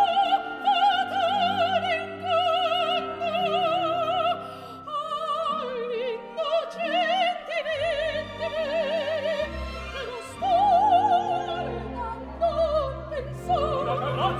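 Operatic soprano singing full-voiced phrases with a wide, regular vibrato, over an orchestra holding sustained lower notes.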